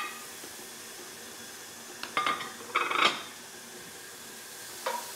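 Metal cookware and utensils clattering at the stove: a clink, then two loud clatters with a ringing tone about two and three seconds in, and a light clink near the end, over a faint steady hiss.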